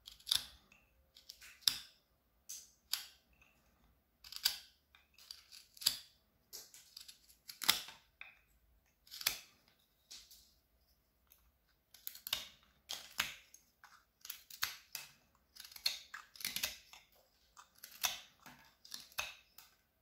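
Carving knife shaving a small wooden branch: many short slicing cuts at an uneven pace, some coming in quick runs, with short gaps between.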